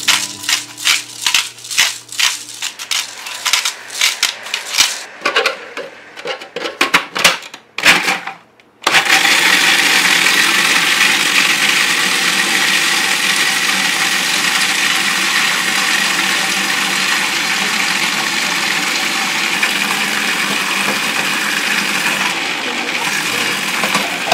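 Cuisinart food processor: a string of short clattering bursts for about the first eight seconds, then it switches on and runs continuously, blending the mixture in its bowl with a loud, steady noise.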